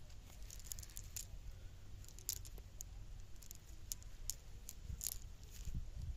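Rustling and crackling of a nylon fishing net being pulled and picked through by hand, with scattered sharp little clicks, over a low steady rumble.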